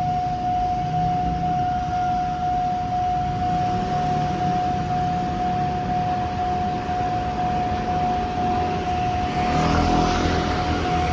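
Level-crossing warning signal sounding one steady, unbroken tone over the low running rumble of a diesel locomotive on a narrow-gauge sugarcane railway. A louder swell of rumbling noise builds about nine seconds in.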